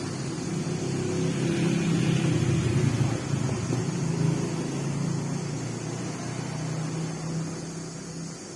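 Electric stand fan's motor running with a steady low hum, swelling louder for a few seconds about a second in, then easing off.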